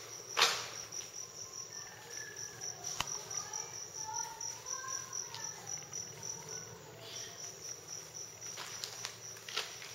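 An insect chirping in a fast, even, high-pitched pulse that pauses about seven seconds in. A sharp knock comes near the start.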